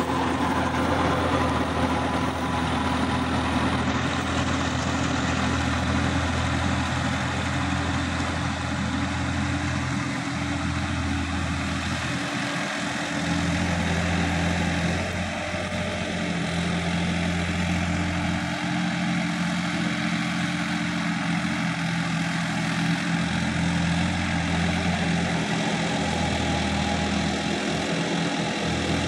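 Sonalika tractor's diesel engine running steadily under load, driving a rotavator that churns through dry soil. The engine note shifts a little about halfway through.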